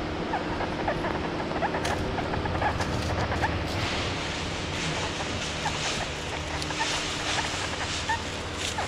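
Footsteps and the detector coil brushing through dry leaf litter and twigs on a dirt trail, with scattered faint short chirps and a few sharp clicks throughout.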